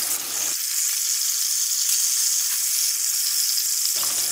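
Minced-meat sausage patties frying in hot vegetable oil over high heat: a loud, steady sizzle.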